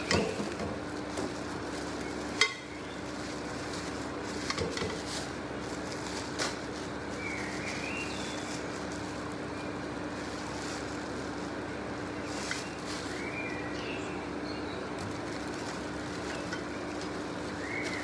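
Plastic wrapping rustling and metal parts clinking as wrapped parts of a charcoal grill are unpacked from a cardboard box, with one sharp knock about two and a half seconds in. A steady low hum runs underneath.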